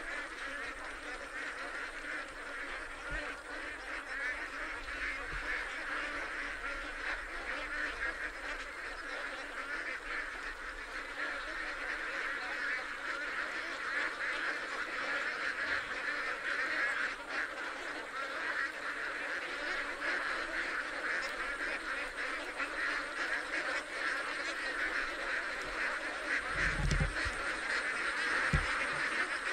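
A large flock of domestic ducks quacking continuously, many calls overlapping into a dense chorus. Two short low bumps come near the end.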